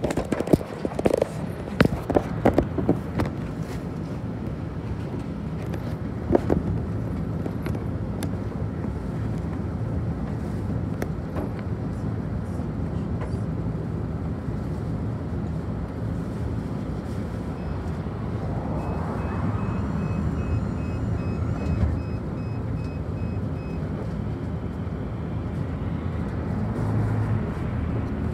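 Inside a city bus, its diesel engine running with a steady low hum while the bus stands still. There are a few sharp knocks and rattles in the first few seconds and once more a little later.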